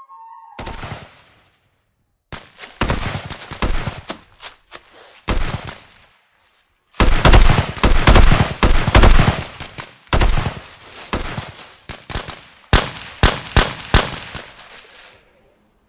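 Rifle fire in rapid bursts of shots, separated by short pauses. The loudest, densest bursts come about halfway through.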